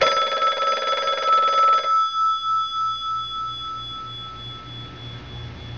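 Telephone ringing: one ring of about two seconds that then dies away, over a low hum, announcing an incoming call.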